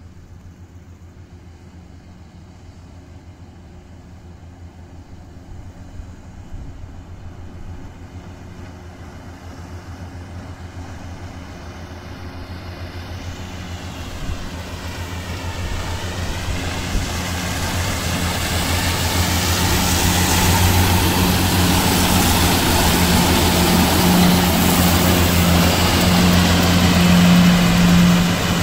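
Tractor engine driving a triple mower combination (front and side disc mowers) while mowing grass, a steady low hum that grows steadily louder as it approaches, with the whirring rush of the mowers building up over the second half.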